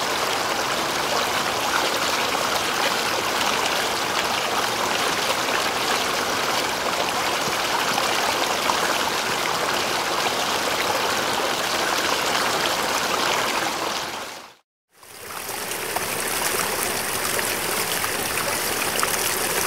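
Mountain stream flowing over rocks: a steady rush of water. About fifteen seconds in it fades out to a moment of silence and fades back in, a cut between two recordings of the same stream.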